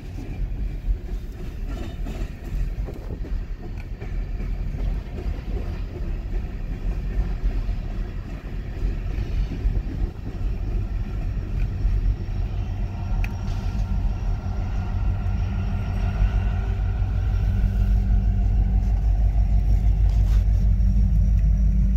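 Coal train cars rolling past with a steady rumble, joined from about halfway in by the diesel engine of a BNSF SD70ACe distributed-power locomotive, a steady low drone that grows louder as it draws near.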